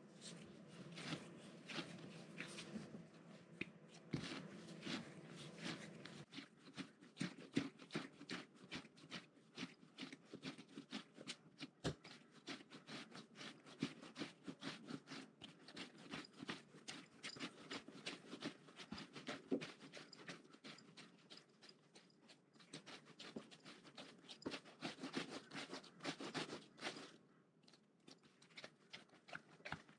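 Faint pressing, rubbing and light tapping of yeasted bun dough being kneaded and rolled into a log by hand on a floured countertop, made up of many small irregular clicks and scuffs.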